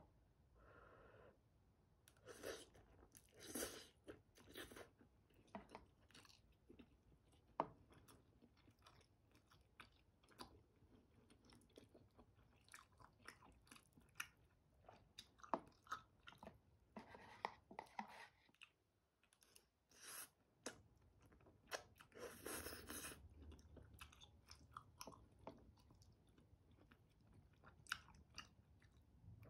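Quiet close-up eating sounds: a person chewing soft, chewy flat glass noodles in spicy Buldak sauce, with several short slurps and small clicks of chopsticks against the dish.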